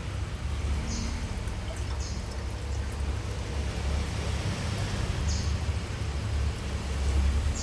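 Steady low hum of aquarium equipment such as a filter or air pump, with short hissing splashes of water about four times.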